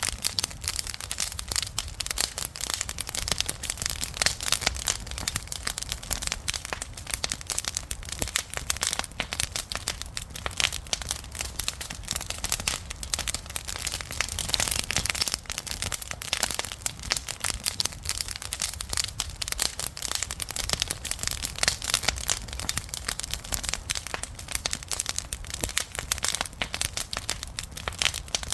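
Wood fire crackling: a dense, continuous stream of sharp pops and snaps over a low rumble of burning.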